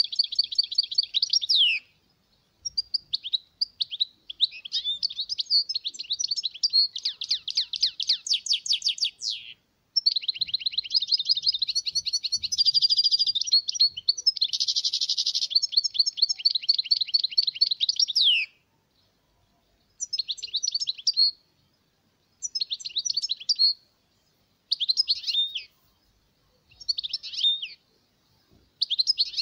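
European goldfinch singing: long unbroken runs of rapid twittering, trills and buzzy notes for most of the first two-thirds, then shorter phrases of about a second separated by pauses.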